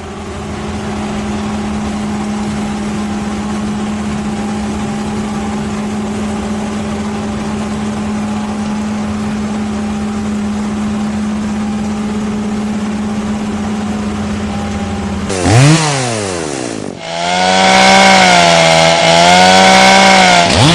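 Chainsaw engine running steadily at high revs for about fifteen seconds, then its pitch dips and climbs sharply, and it runs louder with a wavering pitch to the end.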